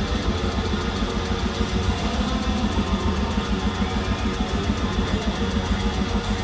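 Heavy metal band playing live, recorded from within the crowd: loud distorted guitars over fast, steady kick-drum strokes.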